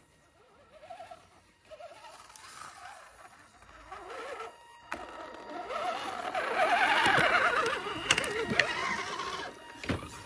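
Radio-controlled scale crawler trucks running on a dirt trail: electric motor and drivetrain whine that wavers up and down in pitch with the throttle. It is faint at first and grows louder from about six seconds in, as a truck crawls close.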